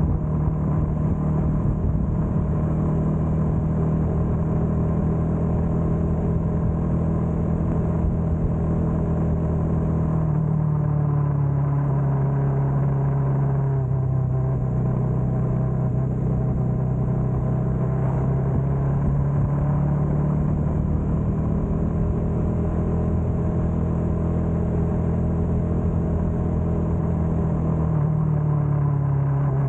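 Bajaj Dominar 400's single-cylinder engine running steadily while riding. Its pitch dips about ten seconds in, climbs back, and dips again near the end.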